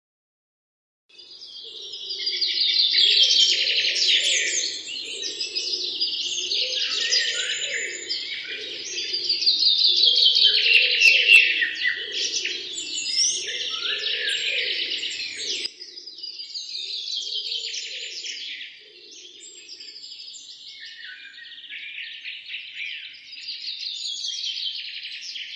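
Many small birds chirping and singing together in a dense, continuous chorus, starting about a second in. A lower warbling layer runs beneath it and drops out about 20 seconds in.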